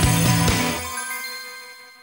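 Outro music of a broadcast: the beat stops just under a second in, and its last notes ring on and fade out.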